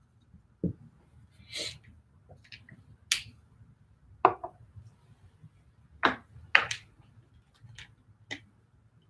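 Sparse, separate clicks and light knocks, a second or two apart, from small objects being handled: a dry-erase marker at a whiteboard, then a plastic water bottle picked up near the end.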